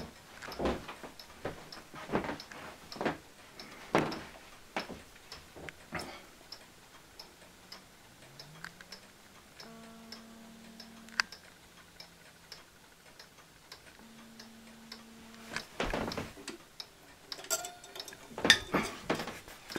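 Weight-driven wall clock ticking steadily, with several louder knocks at uneven intervals.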